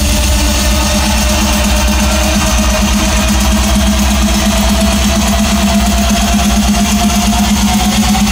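Loud live concert music over an arena PA during an instrumental stretch of the song: a heavy, steady bass line under a synth tone that rises slowly in pitch.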